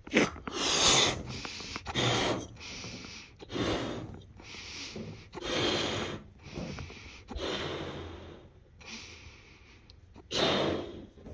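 A rubber party balloon being blown up by mouth: a series of loud, breathy blows into it about every second and a half, with a breath drawn between each.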